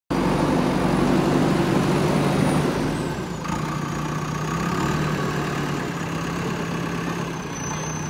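JCB backhoe loader's diesel engine running steadily while the machine works, with a faint high whine over it. It is a little louder for the first three seconds, then shifts and settles lower.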